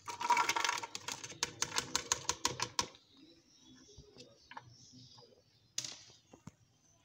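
Chopped onion, garlic cloves and green chillies tumbling from a plastic basket into a blender jar: a dense clatter, then a quick run of separate clicks as the last pieces drop, dying away about three seconds in, with a few faint taps after.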